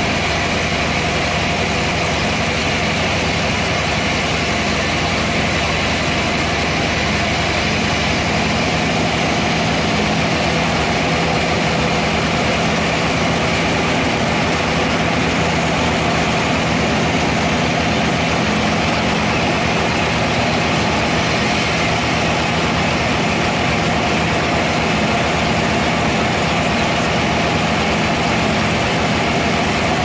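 Band sawmill running steadily as its blade saws lengthwise through a large trembesi (rain tree) log, a constant machine hum under an even sawing noise.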